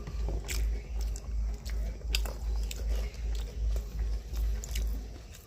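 A person chewing a mouthful of food close to the microphone: irregular small wet clicks and smacks of the mouth, over a low steady hum.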